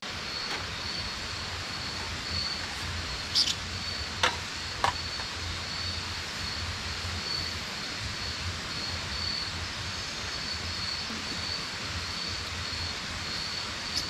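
Night jungle ambience: the steady rush of river water with an insect chirping at an even, repeating rhythm, and a few sharp clicks a few seconds in.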